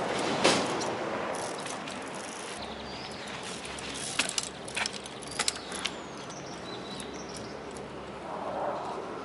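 Trials bike hopping and balancing on a boulder: sharp knocks and clicks of tyres and frame striking the rock, the loudest about half a second in and a quick cluster around the middle, over a steady outdoor background noise.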